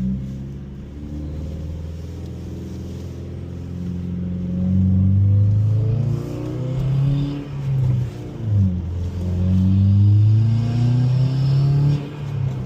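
Subaru WRX's turbocharged flat-four engine pulling under acceleration, its pitch climbing, then dropping briefly at gear changes about two thirds of the way in and again near the end.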